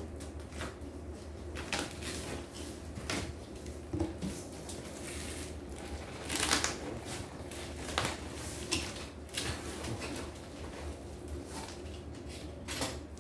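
Cardboard shipping box and its packing boards being handled: scattered rustles, scrapes and light knocks as the flaps are folded back and the boards shifted, over a steady low hum.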